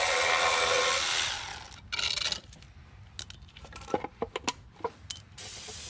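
Aerosol brake cleaner spraying in a steady hiss for about the first second and a half, then one shorter spray near two seconds. After that come a run of light, sharp clicks and taps.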